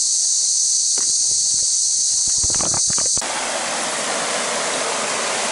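Loud, steady chorus of cicadas, with a few knocks. A little over halfway through it cuts off abruptly to the even rush of a creek running over rocks.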